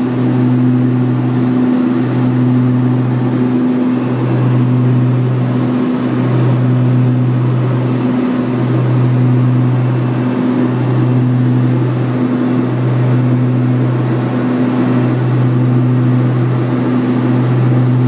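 Twin PT6A turboprops and propellers of a Beechcraft Super King Air 200 droning steadily, heard from inside the cockpit. The drone swells and fades in a slow, regular beat about every two seconds, the sign of the two propellers turning at slightly different speeds.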